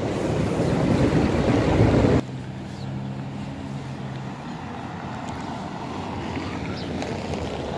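Outdoor ambience with wind rumbling on the microphone. About two seconds in it cuts abruptly to a quieter, steady background hum.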